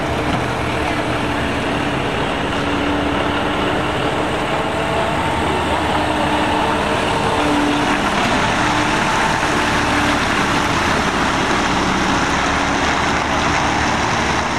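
Vehicles with loud custom mufflers running, a steady dense exhaust noise with a few held engine tones that drift slightly in pitch.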